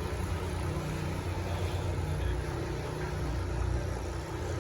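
Steady low hum of a river tour boat's motor while under way.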